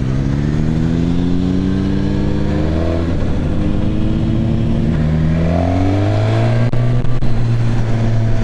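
2019 Suzuki Katana's 999 cc inline-four engine accelerating up through the gears. The engine note rises, drops at a gear change about three seconds in, rises again, dips once more around five to six seconds, then holds a steady cruise near the end.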